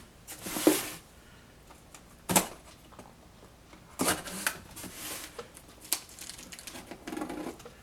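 A cardboard shipping box being handled and slit open with a pocket knife: scattered knocks and scrapes of cardboard, with a sharper knock about two and a half seconds in and a short rustle near the end.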